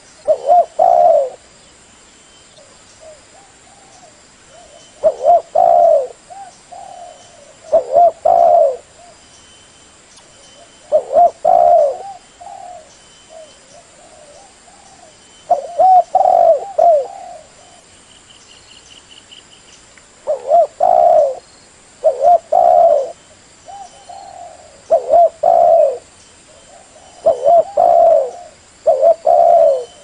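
Spotted dove (tekukur, 'leopard/blorok' form) cooing: about ten short phrases of a few low coos, each around a second long and repeated every two to five seconds. It is a lure call meant to get other spotted doves to answer.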